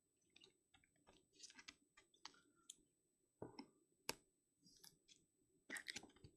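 Faint, scattered clicks and rustles of trading cards being handled.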